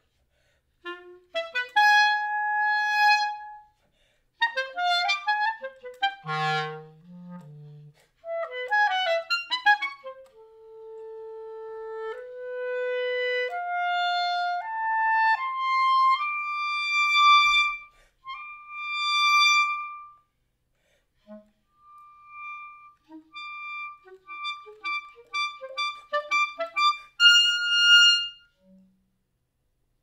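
Solo clarinet playing contemporary concert music: quick flurries of notes, then a slow line of held notes stepping steadily upward to a high held pitch. After a few sparse, soft notes comes another rapid flurry that ends on a held high note.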